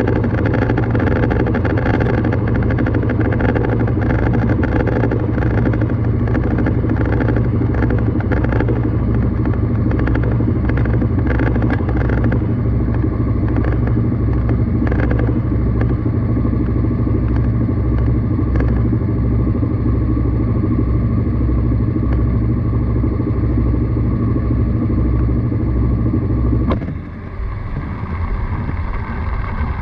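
Washing machine running, heard from a GoPro inside the drum: a loud, steady motor hum with scattered clicks and knocks. About 27 seconds in the sound drops suddenly and changes.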